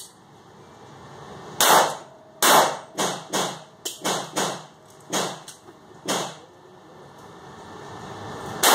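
A string of about ten pistol shots from a .40 S&W M&P, fired at an uneven pace. Each shot echoes briefly off the walls of an indoor range. A pause of about two seconds comes near the end, followed by the loudest shot.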